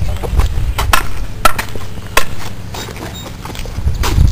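A series of sharp knocks, roughly one or two a second, over a steady low rumble.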